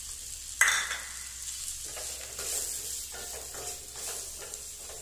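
Potato chunks and onion-coconut masala sizzling in a stainless steel kadai while being stirred with a spatula, with a single sharp clank about half a second in.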